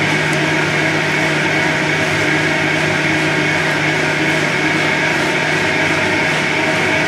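Upright exercise bike whirring steadily as it is pedalled hard in a sprint at high resistance.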